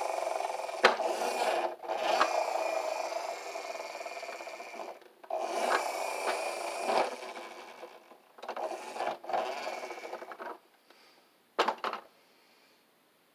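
Wolvol toy recycling truck's friction motor whirring with a gear whine in about four runs as the truck is pushed, each fading as the flywheel spins down. Two sharp clacks near the end.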